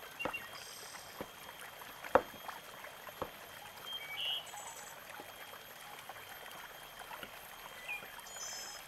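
Kitchen knife slicing a block of palm sugar on a wooden cutting board: a few scattered knocks of the blade against the board, the sharpest a little over two seconds in, over a faint steady hiss.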